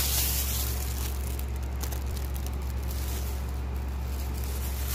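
Steady low electrical hum under an even hiss, with no distinct events.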